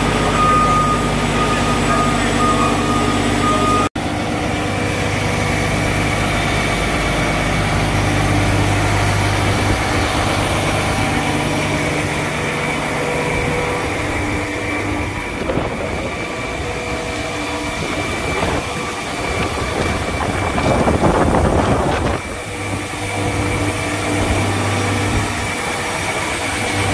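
Fendt tracked tractor's diesel engine running steadily at idle, with a brief break about four seconds in.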